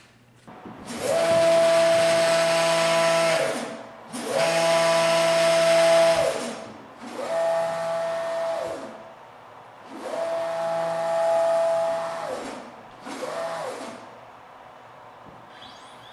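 Stepper motors of a DIY CNC plasma table driving the gantry through five quick rapid moves. Each move is a pitched whine that glides up as the motors speed up, holds steady, and glides down as they slow to a stop; the last move is short. A higher-pitched whine rises in near the end and keeps going.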